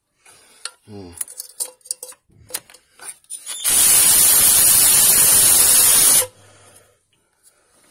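Aerosol spray can fired through its thin straw at a bolt hole in the timing cover: one steady hiss lasting about two and a half seconds, starting about three and a half seconds in and stopping abruptly. It is preceded by a few light clicks of handling.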